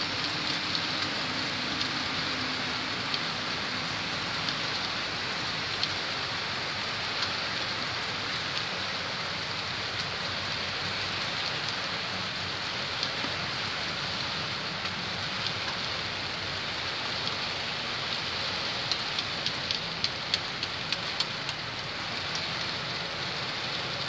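Model train of coal hopper cars rolling past on the layout's track: a steady rushing hiss of metal wheels on rails. Late on comes a quick run of sharp clicks.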